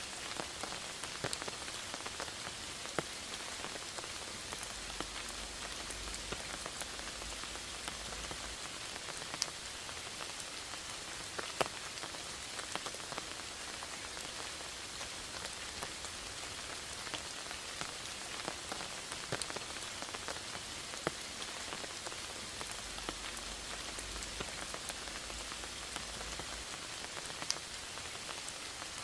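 Steady rain falling in a forest: an even hiss with scattered sharper drop taps.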